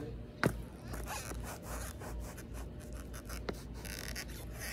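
Sneaker and skateboard scuffing and rustling on lawn grass as the board is positioned for a kickflip, with a sharp knock about half a second in and a lighter click about three and a half seconds in.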